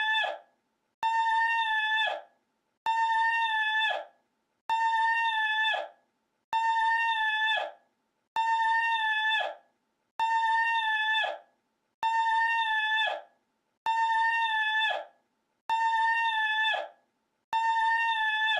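The same short, high, steady-pitched honking call, a recording looped over and over with a brief silence between repeats, about one call every two seconds.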